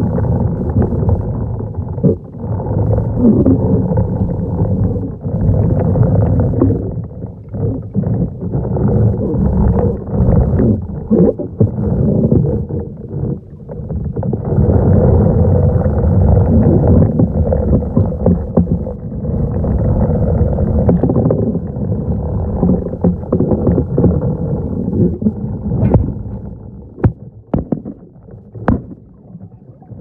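Muffled underwater rumble and swishing of water as a manual pool vacuum head with hose is pushed across the pool floor, heard from under the water, swelling and easing with the strokes. It drops off near the end, where a few sharp clicks stand out.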